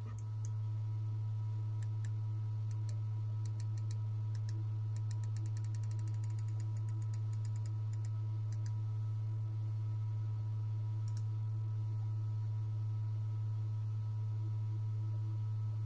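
Steady low electrical hum with a few fainter higher tones above it. A run of faint, quick ticks comes in about two seconds in, grows denser, and stops about nine seconds in.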